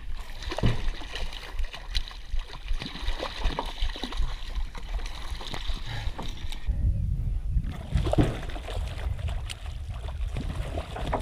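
Hooked trout splashing and thrashing at the water's surface beside a rowboat, with scattered sharp knocks. About two-thirds of the way in, the splashing thins and a low rumble sets in.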